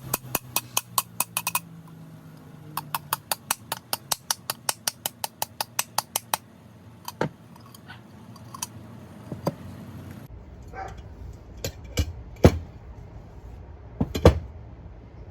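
Two runs of rapid, evenly spaced small clicks, about six a second, then a few scattered taps and sharper knocks near the end.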